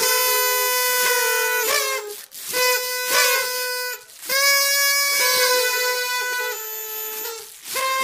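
Toy party trumpets blown in long, loud, buzzy blasts on one held pitch. There are three blasts, broken off briefly about two and four seconds in and again near the end, and the pitch sags as a blast tails off.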